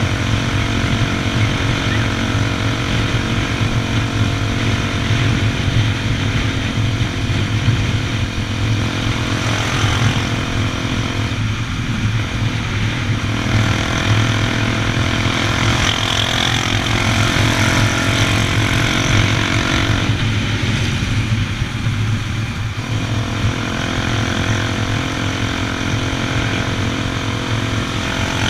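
Honda XR 250 Tornado's single-cylinder four-stroke engine running steadily at a constant cruising speed.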